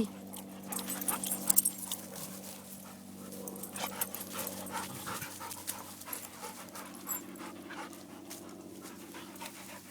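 Dogs panting, with scattered short rustles and clicks, most of them about a second in.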